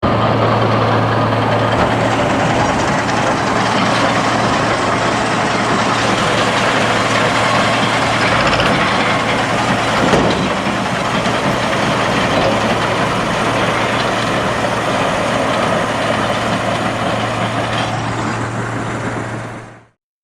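Tractor engine running steadily with a constant low hum, with a brief knock about halfway through; the sound fades out near the end.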